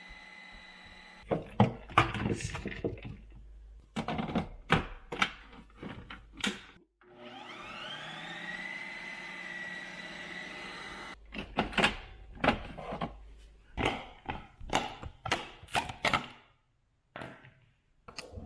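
Ninja Creami ice cream maker processing a frozen pint: its motor runs with loud, irregular knocking and clattering as the spinning blade shaves into the frozen block. Midway the motor spins up with a rising whine and runs at a steady pitch, then the knocking starts again and it stops near the end.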